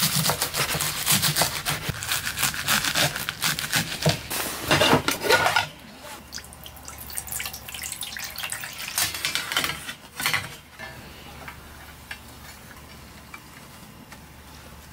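Kitchen knife chopping chives rapidly on a wooden cutting board, a quick run of sharp chops for about six seconds. Then water pours into a metal steamer pot, followed by quieter handling of the chives on the steamer tray.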